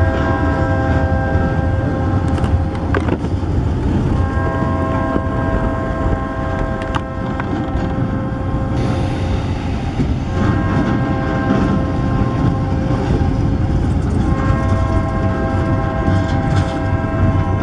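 Diesel freight locomotive's multi-note air horn sounding in four blasts, long, long, short, long, the pattern of a grade-crossing signal, over the steady low rumble and clatter of loaded pulpwood cars rolling past.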